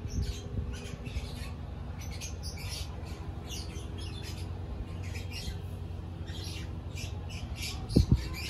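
Small birds chirping in quick, short, high notes again and again, over a low steady rumble. A brief thump sounds near the end.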